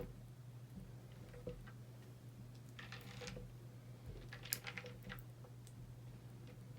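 Slime being handled: scattered soft clicks and short sticky crackles, the sharpest snap about halfway through, over a faint steady hum.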